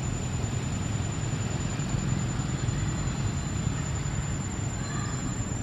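Steady low rumbling background noise with a faint, constant high-pitched whine; no distinct animal calls stand out.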